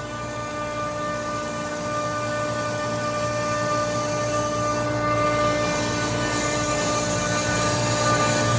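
Chiller coils being rinsed with a water spray to wash off coil cleaner, over a steady machine hum with several held tones. The sound grows slowly louder.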